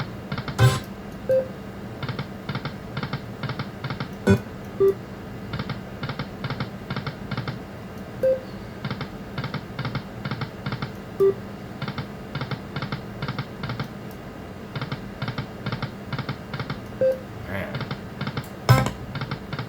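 Aristocrat Lightning Link slot machine spinning again and again. Each spin gives a quick run of evenly spaced ticks, and there are short beep tones, a few louder single clicks and the machine's background music.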